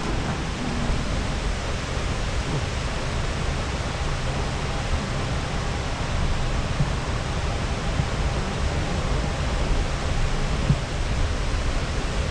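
Steady, even rushing noise while riding an airport escalator: the escalator running, blended with the terminal's air-handling hum.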